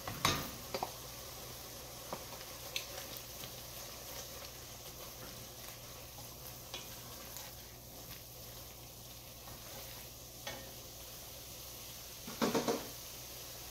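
Vegetables and tomato paste sizzling softly as they cook down in an enameled cast-iron Dutch oven, stirred with a wooden spoon that scrapes and knocks against the pot now and then. A short cluster of louder knocks comes near the end.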